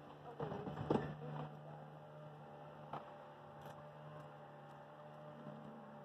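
A steady low hum, with a few brief faint sounds about half a second to a second in.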